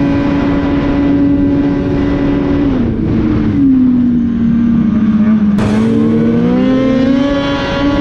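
Polaris Patriot Boost turbocharged 850 two-stroke snowmobile engine at wide-open throttle through the stock muffler, running at a steady high pitch. The note sags lower about three seconds in and climbs back up after about six seconds.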